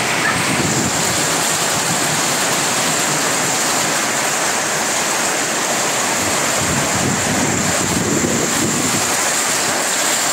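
Heavy downpour: a steady rush of rain falling on corrugated roofing, with water pouring off the roof edges.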